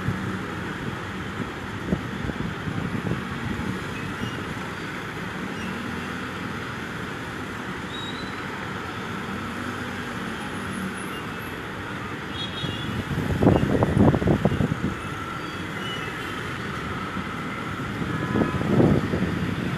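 Road traffic heard from above the street: a steady hum of engines and tyres, with two louder low rumbling swells, one about two-thirds of the way through and one near the end.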